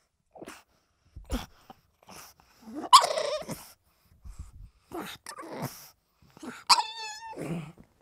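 Pug making a string of short, breathy noises about a second apart, the loudest about three seconds in. Near the end comes a brief high whine.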